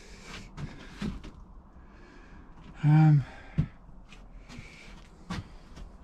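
Scattered light knocks and clicks of things being moved about in a cluttered wooden shed, with a short hummed sound from a man's voice about halfway through.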